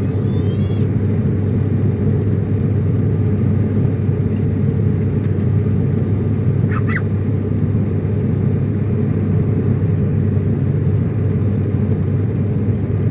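Airliner cabin noise during the climb: the steady low rumble of the jet engines and airflow, heard from a passenger seat.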